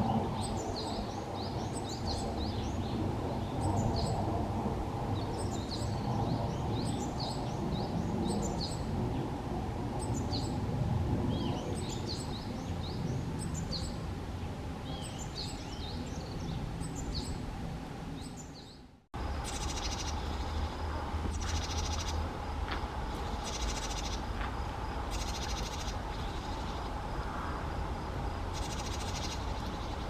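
Japanese tit singing: high, thin notes repeated in quick runs, the kind of song usually given from an exposed perch to claim territory. After a cut about two-thirds of the way in, the tit gives harsh, rasping alarm calls in short repeated runs, over a steady low background noise.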